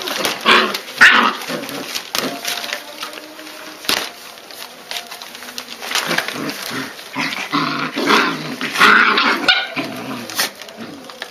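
German shepherd puppies barking and growling: a string of short calls, loudest in clusters near the start and again toward the end.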